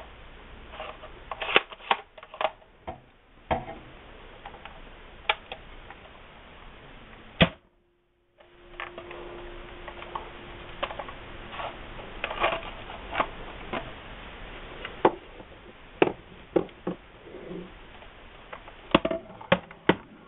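Irregular sharp plastic clicks and clacks, sometimes several close together, from a modified ERTL toy pump-action shotgun being worked and handled. The sound cuts out completely for about half a second just before the middle.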